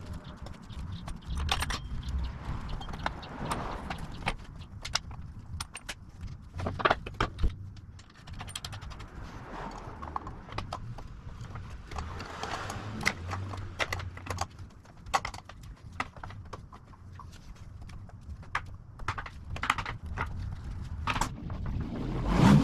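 Irregular metallic clinks, knocks and clatter of hand tools and parts being handled, over a low steady hum.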